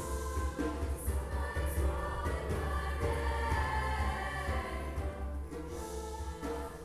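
A choir singing, many voices holding sustained chords.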